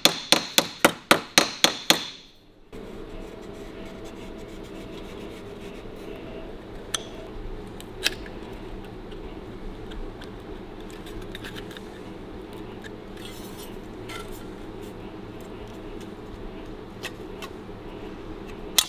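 Hammer striking a small piece of sheet steel clamped in a bench vise, about four quick blows a second, forming a radius on a rust-repair patch; the hammering stops about two seconds in. Then a steady low hum with a few faint clicks as hand tin snips trim the sheet metal.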